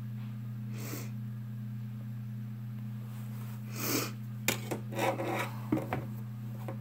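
Two short sniffs through the nose about three seconds apart, then a few light clicks and taps of small objects being handled, over a steady low hum.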